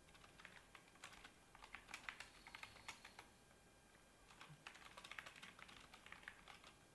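Faint computer keyboard typing: two runs of rapid keystrokes with a pause of about a second between them.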